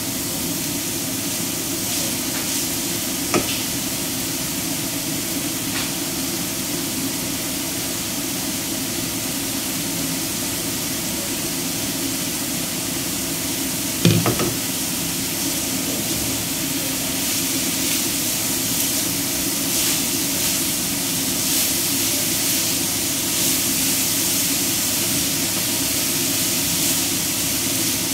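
Minced beef, carrot and bean sprouts sizzling in a frying pan on a gas flame while being stirred and tossed with a spatula, the sizzle getting louder in the second half. A small click about three seconds in and a sharp knock about halfway through.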